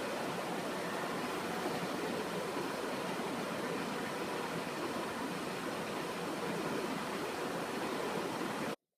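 Steady, even hiss-like background noise with no rhythm, cutting off abruptly to silence near the end.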